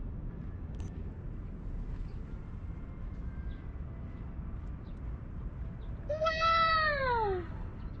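A single long animal call about six seconds in, rising slightly and then falling in pitch over about a second and a half, over a steady low background rumble.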